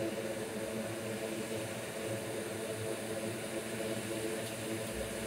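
Steady mechanical whir of blowing air with a low hum of several steady tones. A low rumble comes in near the end.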